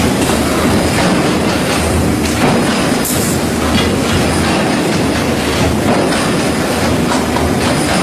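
Hexagonal wire mesh (gabion basket) weaving machine running steadily: a loud, even mechanical din with many small clicks throughout.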